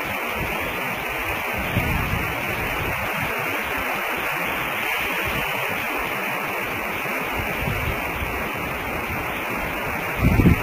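Steady hiss of static with no clear sound from the eagles, and a brief low rumble near the end.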